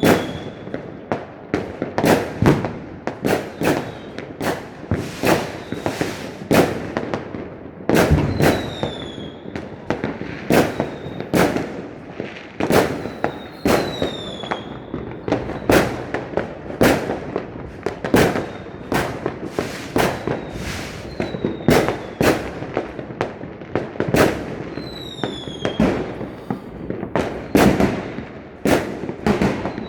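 Fireworks going off: an unbroken run of sharp bangs, often several a second, with a short high whistle falling in pitch every few seconds.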